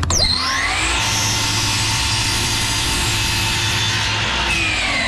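Electric power saw switched on with a click, whining up to speed, running steadily for about four seconds, then switched off and winding down in a falling whine. It is cutting tongue-and-groove ceiling boards to length.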